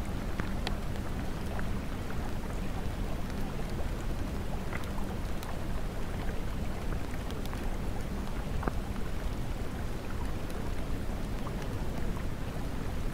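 Steady rain recording: an even hiss of rainfall over a deep low rumble, with scattered individual drops ticking.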